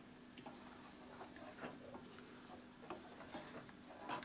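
Faint stirring of thin dal in a metal kadai: scattered soft ticks and scrapes of the spatula against the pan, over a low steady hum.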